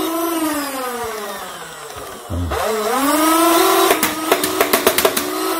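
NERF Rival Perses MXIX-5000 motorized blaster: the whine of its flywheel motor falls as the wheels spin down, then rises again as they rev back up about two seconds in. About four seconds in it fires a rapid burst of foam balls, about eight shots a second.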